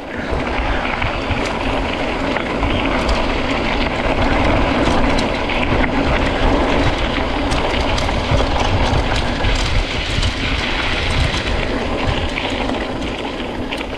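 Mountain bike rolling steadily over a bumpy dirt track: tyres rumbling on the ground and the bike rattling, a steady noise with scattered small clicks.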